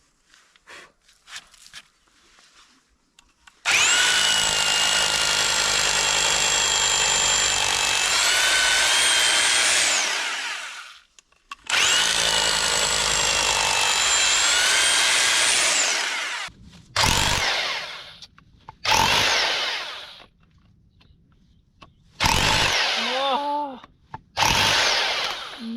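Electric hammer drill boring into concrete: two long runs of about six and four seconds with a steady whine, then several short bursts near the end.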